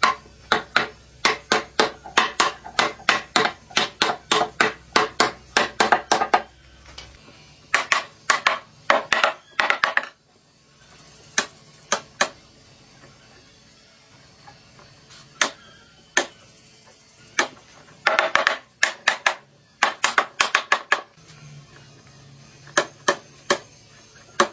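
Hammering: a fast run of sharp blows, about four or five a second, for the first six seconds, then shorter bursts of blows with pauses between.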